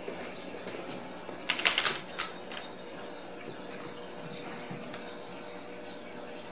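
Kittens' claws scratching and skittering on a cardboard scratcher and tile floor in a quick burst about one and a half seconds in, with a few lighter ticks later, over a steady background hiss and faint hum.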